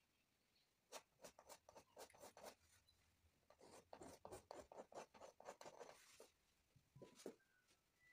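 Faint scratching of a paintbrush's bristles working paint onto a canvas in quick short strokes. The strokes come in two runs, with a couple more near the end.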